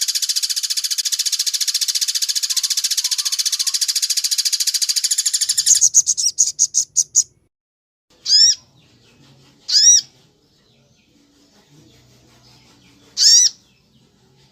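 Recorded songbird song: a fast, dense trill for about six seconds that breaks into a few quick descending notes, then three separate single call notes, each rising then falling in pitch, a second or more apart.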